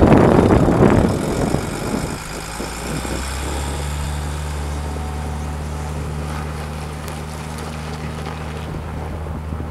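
Volvo A25C articulated dump truck's diesel engine running as the truck drives off and turns away. A loud rush of noise fills the first two seconds, then the engine settles to a steady drone.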